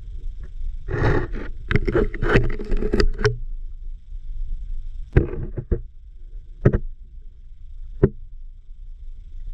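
Muffled underwater rumble picked up by a submerged camera, with a quick run of clicks and knocks about a second in and three single sharp knocks later, from the camera housing being moved and bumped underwater.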